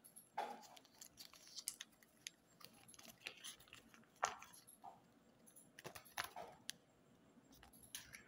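Close-up handling of candy packaging and small plastic pieces: scattered light clicks and taps with a few short crinkles of wrapper, the loudest about half a second in, just past four seconds and about six seconds in.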